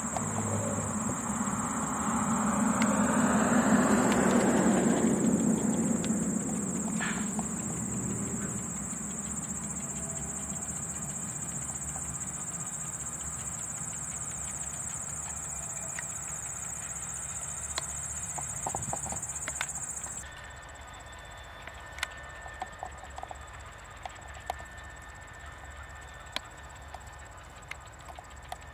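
Insects trilling steadily, with a broad, distant low noise swelling and fading over the first few seconds. About two-thirds of the way through the trill stops abruptly, leaving a quieter, faint steady hum with scattered light ticks.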